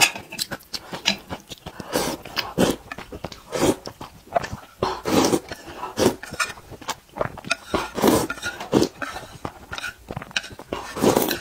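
A person slurping noodles and broth from a ceramic spoon and chewing, close to the microphone, in short irregular bursts every half second to a second.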